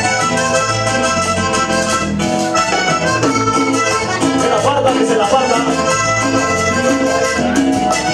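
Live cumbia band playing: an accordion melody over a bass line and a steady percussion beat.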